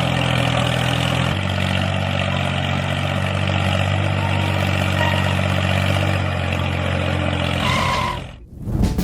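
Engine running steadily, its note shifting slightly about a second in and again near the end, then dropping away about eight seconds in.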